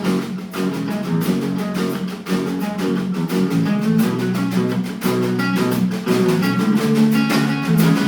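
Guitar strumming chords in an instrumental break of a live song, with no singing.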